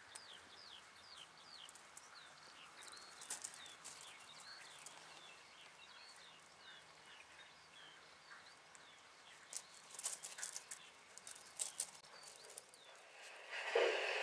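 Faint outdoor birdsong: a small bird repeating quick, short falling chirps, with a few sharp clicks and crackles, several of them clustered a little before the end. Near the end a louder steady noise sets in suddenly.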